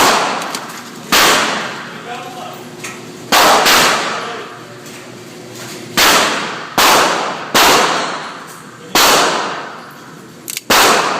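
Remington 1911 R1 pistol firing .45 ACP rounds: about eight single shots spaced one to two and a half seconds apart, each ringing out for about a second.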